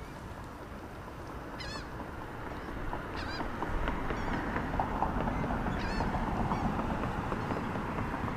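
A small bird chirping in short, quick falling notes, a few times over several seconds, over a steady outdoor background noise that swells about three seconds in.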